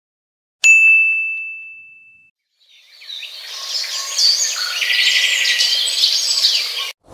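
A single bright ding, like a small bell struck once, comes about half a second in and rings out over a second or so. Then a chorus of birds chirping and trilling fades in and carries on until it cuts off suddenly near the end.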